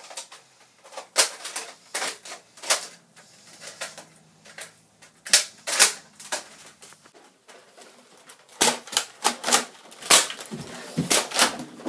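Sharp clicks and knocks of a person moving about with a plastic Nerf dart blaster, sparse at first and coming in a quick run near the end.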